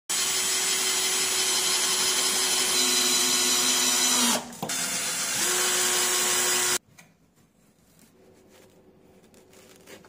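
Cordless drill-driver driving screws into a plywood frame: a steady motor whine whose pitch drops partway through the first run, a brief break, then a second shorter run that cuts off suddenly about two-thirds of the way in. After it, a few faint knocks.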